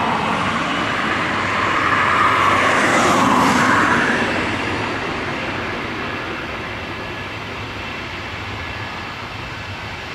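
Jet airliner's engines running at takeoff power, a loud, steady rush that peaks a few seconds in and then fades slowly as the aircraft climbs away.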